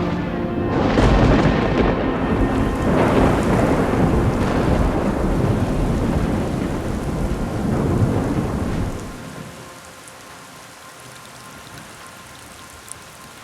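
Thunder rumbling over heavy rain, in several surges, for about nine seconds. The thunder then drops off, leaving a quieter, steady rain.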